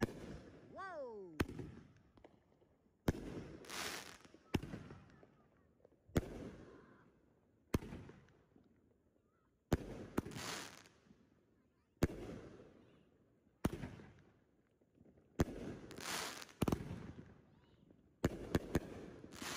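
Consumer fireworks cake (repeater) set off on the pavement, firing shot after shot: about a dozen sharp cracks every second or two, each trailing off in a rumble. Near the end three come in quick succession.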